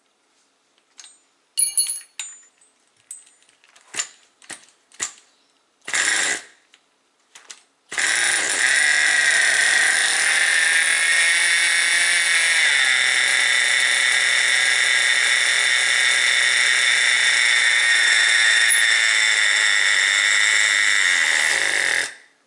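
Start attempt on a Tamiya TGX nitro RC car's small glow engine. A few clicks and knocks of handling come first. Then a steady mechanical whir runs for about fourteen seconds, drops a little in pitch partway and cuts off abruptly.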